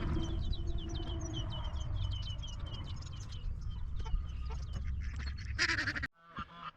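Farmyard ducks and geese calling over a steady low rumble, with a quick run of short, high chirps in the first few seconds. The sound cuts off abruptly near the end.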